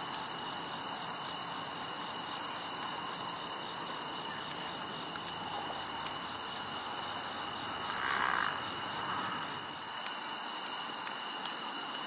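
Night-time outdoor ambience of crickets trilling steadily, with a few faint crackles from the wood fire. A brief louder noise stands out about eight seconds in.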